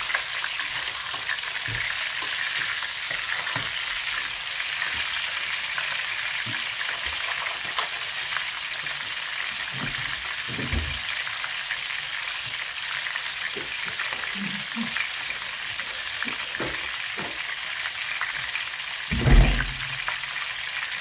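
Chicken thighs sizzling steadily in hot fat in a frying pan, with a few light clicks and a dull thump near the end.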